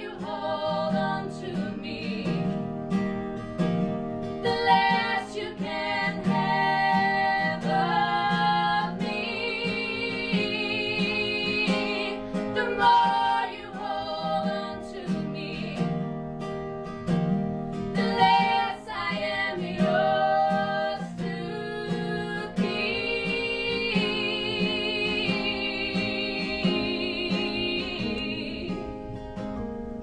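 A live acoustic song: two women's voices singing together over an acoustic guitar. Long held sung notes with vibrato come near the end.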